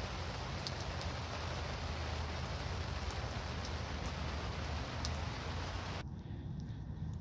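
Heavy downpour of rain, a steady dense hiss with scattered sharp drop ticks. About six seconds in the hiss cuts off abruptly to a much quieter background.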